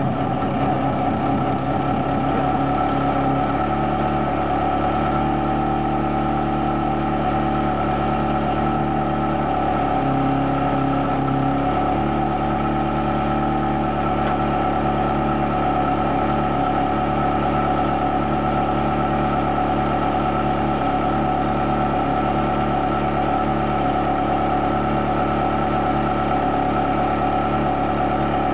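Ferrari 360 Challenge Stradale's 3.6-litre V8 idling steadily, freshly started, its idle note shifting slightly a few seconds in and again about twelve seconds in.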